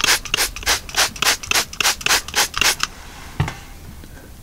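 Trigger spray bottle squirted rapidly, about four sprays a second, misting leak-check solution onto gas line fittings and a shutoff valve to check for gas leaks. The spraying stops a little past halfway, and a single dull knock follows.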